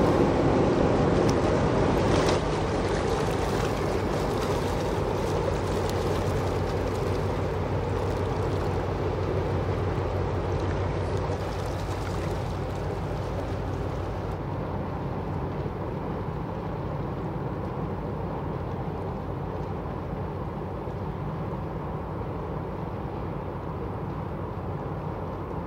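Cargo ship KRISLIN's engine running with a steady low hum as it passes, together with the rush of water churned up at its stern. It grows gradually fainter as the ship moves away.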